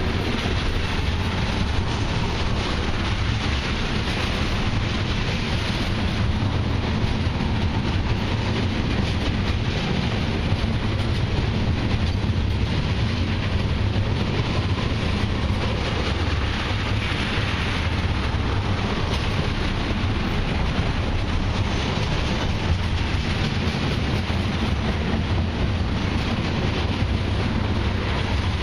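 Loaded crude-oil tank cars of a freight train rolling past close by: a steady rumble and clatter of steel wheels on the rails.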